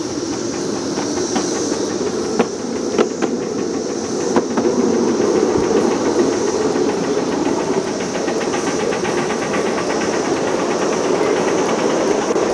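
Small live steam locomotive and its riding car running along the track, heard from aboard: a steady rumble of wheels on the rails with a continuous high hiss, and three sharp clicks of the wheels over rail joints in the first few seconds.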